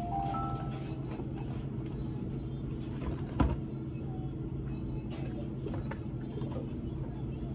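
Steady low hum of a store's background machinery, with a few short electronic beeps from the checkout register at the start and one sharp knock about three and a half seconds in.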